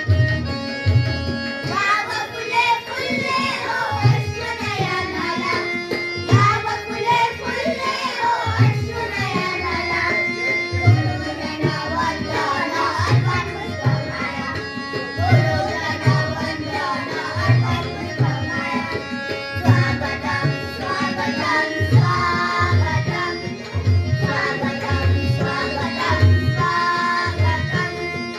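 A welcome song sung with tabla accompaniment: a melodic line wavering over steady, regular tabla strokes.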